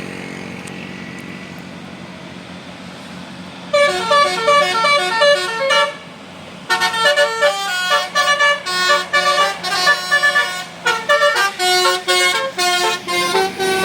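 Bus telolet horn of the Basuri musical type playing a fast tune of short, changing notes, starting about four seconds in, breaking off briefly and then playing a longer phrase. Before the tune and under it, a bus engine runs with a steady low hum.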